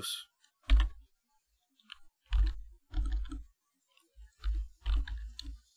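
Computer keyboard being typed on: several short runs of keystrokes with pauses between them, each run carrying a dull low thud.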